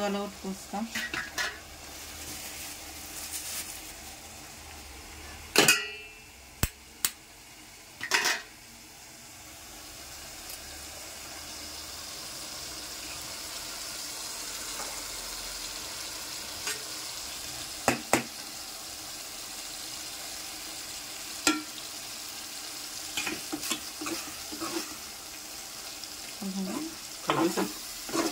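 Curry gravy sizzling and simmering in an aluminium pot, a steady hiss that swells a little after the first third. A metal spoon stirs and clatters against the pot at the start and again near the end, with a few sharp knocks in between.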